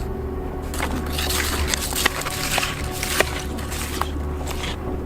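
Fishing gear being handled and packed up on the ice: irregular sharp clicks and rustling over a steady low rumble.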